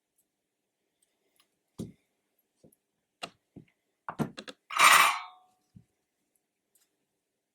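Small tools and wires being handled at a workbench: scattered clicks and light knocks. About five seconds in comes one louder, brief hiss of about half a second.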